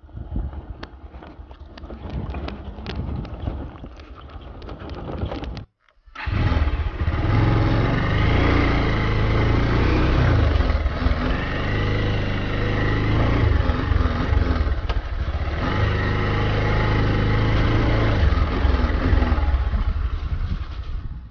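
Motorcycle engine running as it is ridden over a rough, stony track, with rattling and clicks for the first five seconds or so. It cuts out abruptly just before six seconds in, then comes back louder and steadier, its pitch wavering up and down.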